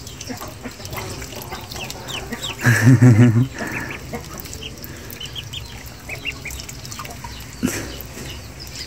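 A brood of ducklings peeping, many short rising calls scattered throughout. About three seconds in comes a louder, low, wavering drawn-out call under a second long, and near the end a single sharp click.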